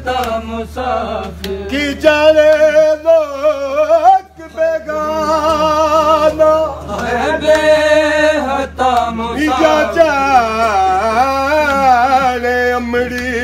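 Male voice chanting a noha, a Shia lament, in long wavering held notes, with a brief pause between phrases about four seconds in.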